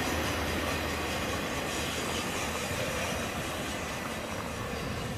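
Tail end of a freight train rolling away along the track, its wheel rumble fading slowly.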